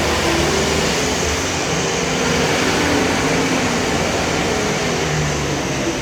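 John Deere 325G skid steer's diesel engine running steadily, with some shifting in its low pitch.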